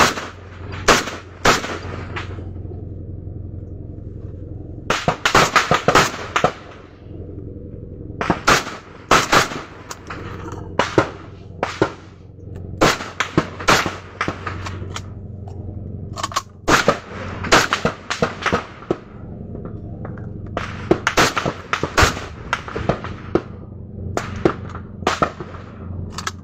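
Assault rifle fire from MA-1 Mk2 and Wa-81 rifles: rapid strings of shots in groups lasting a second or two, coming again every few seconds, over a steady low hum.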